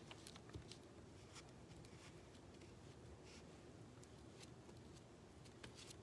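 Near silence: faint room tone with a few brief, faint clicks and rustles from fingertips pressing a small glued fabric piece.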